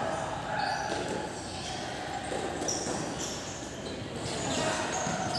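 Sounds of a football match in play: scattered ball knocks and players' feet, with faint distant voices.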